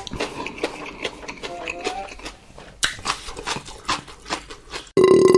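Close-miked ASMR eating sounds: wet chewing and mouth smacking with many small irregular clicks. About five seconds in, a short loud burp.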